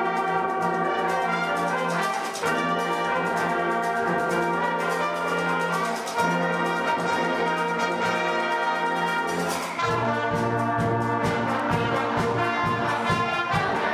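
Brass band playing: sustained brass chords over a long held low note, and about ten seconds in the bass changes to a repeated, pulsing low line with a steady beat.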